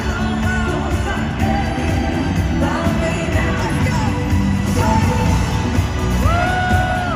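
Live pop music over an arena sound system, with a steady heavy beat, sung vocals and crowd noise; about six seconds in a singer swoops up into a long held note.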